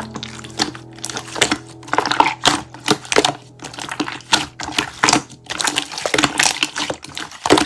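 Slime being squeezed and poked, making dense, irregular crackling clicks and pops, over soft background music that fades early on.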